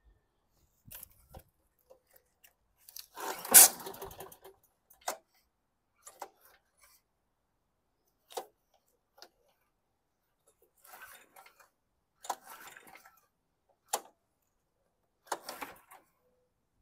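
Scattered clicks, knocks and rattles from working the recoil pull-starter of a Scotts walk-behind mower with an overhead-valve engine, loudest about three and a half seconds in. The engine never fires; the owner blames a recoil spring that has grabbed itself.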